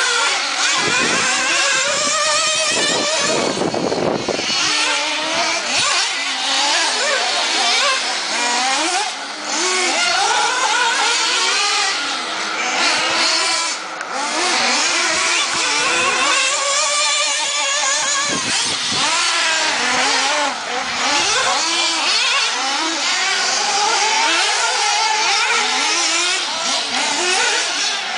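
Several radio-controlled off-road buggies running laps together, their high-pitched motors overlapping and rising and falling in pitch as they accelerate and back off.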